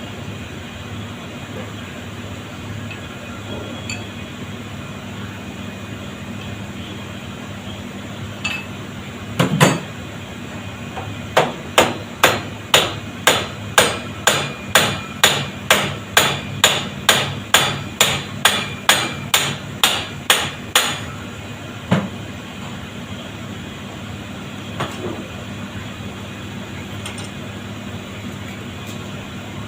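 Hammer blows: one strike, then about twenty quick, even strikes at roughly two a second for about ten seconds, and one last strike.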